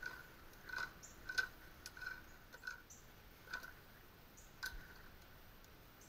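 Tongue-and-groove (channel-lock) pliers clicking on the metal fitting of a knockout tool as it is tightened a little at a time. A series of faint, short metallic clicks, each with a brief ring, half a second to a second apart and thinning out after the middle.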